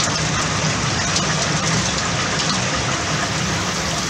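Steady heavy rain falling, an even hiss with faint scattered patters.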